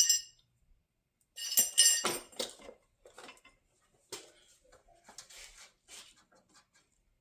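Metal hand tools and small parts clinking and clattering: a few sharp ringing metallic knocks about a second and a half in, then lighter scattered clicks and rattles.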